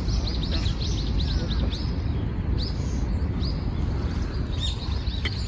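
A small bird calling: a quick run of short, high, down-slurred chirps, then a few scattered chirps later on, over a steady low background rumble.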